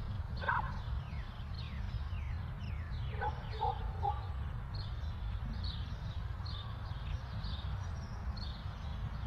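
Birds chirping over and over in short, downward-sliding calls, over a steady low rumble of outdoor background noise. A few short, lower-pitched calls come about three to four seconds in.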